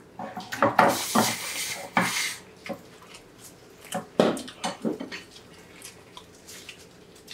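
Bibim-myeon noodles being slurped: one long slurp in the first two seconds and another round of slurping about four seconds in, with chewing and light clicks of chopsticks against the bowl.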